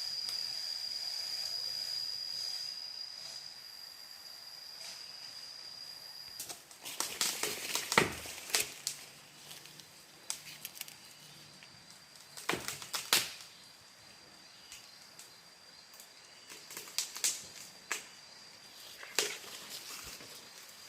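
Falling albasia tree: irregular clusters of sharp cracks and snaps from the trunk and branches as it goes over, the loudest about eight and thirteen seconds in. Under them is a steady high insect drone that cuts off about six seconds in and then carries on more faintly.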